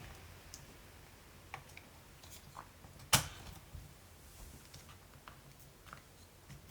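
Scattered light clicks and taps of small hand tools and parts against a laptop as it is worked on, with one sharper click about three seconds in.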